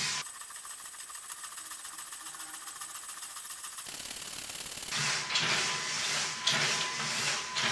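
LEGO Technic wave generator running, its motor and gear train making a rapid, even ticking; about five seconds in, louder sloshing and splashing of the waves in the glass tank comes back over it.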